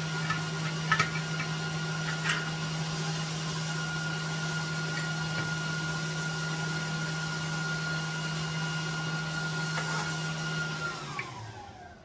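An electric motor in the shop hums steadily, then shuts off about eleven seconds in and winds down, its pitch falling as it stops. A few light metal clinks come as rebar is set on the steel base plate.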